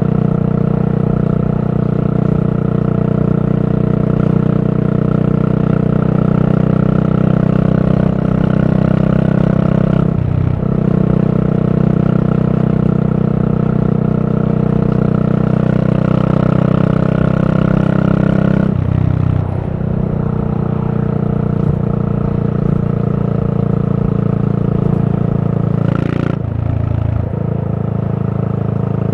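Yamaha SR400's air-cooled single-cylinder engine running steadily under way through a Goods tapered cone slip-on muffler. The note dips briefly about ten, nineteen and twenty-six seconds in, settling slightly lower after the second dip and back up after the third.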